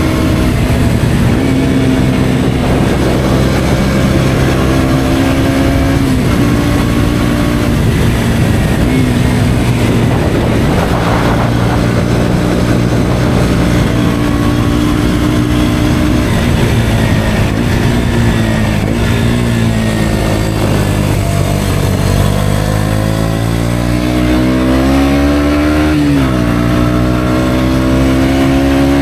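KTM Duke 125's single-cylinder four-stroke engine running through an Akrapovič exhaust, holding a fairly steady pitch while riding for most of the time. Near the end it revs up, drops sharply at a gear change, then climbs again.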